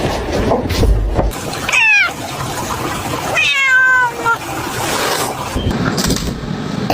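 A cat meowing twice, a short meow about two seconds in and a longer, wavering one a second and a half later, over scuffling noise. The cat has its claw caught in a screen.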